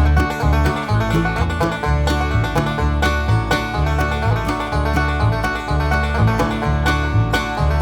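Background music: upbeat banjo-led bluegrass or country tune with a steady beat, its bass line coming in right at the start.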